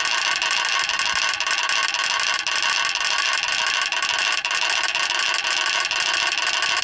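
Wooden Easter rattle (Klapper) being worked without a break, giving a fast, steady, dense wooden clatter. This is the Holy Week Klappern that stands in for the silent church bells from Maundy Thursday to Holy Saturday.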